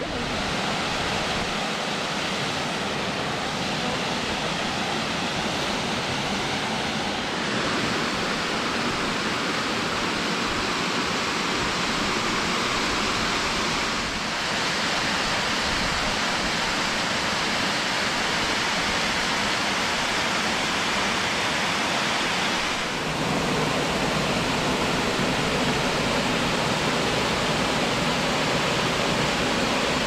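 Rushing water from a forest waterfall and its rocky mountain stream, a steady even roar that grows a little fuller about three-quarters of the way in.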